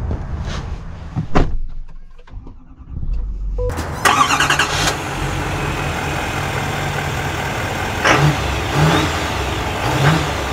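Clicks and knocks of a driver getting into the cab of a 2024 Chevrolet Silverado 2500 HD ZR2 Bison, then about four seconds in its Duramax diesel engine starts with a brief loud burst and settles into a steady idle, with a few short swells near the end.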